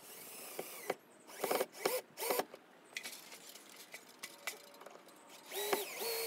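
Cordless drill driving fasteners into wooden wall framing. It runs in several short trigger bursts, then one longer steady run near the end.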